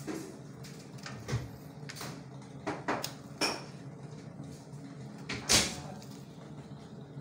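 Chunks of raw meat being placed by hand into a large metal cooking pot, giving about six separate knocks and clunks against the pot, the loudest about five and a half seconds in.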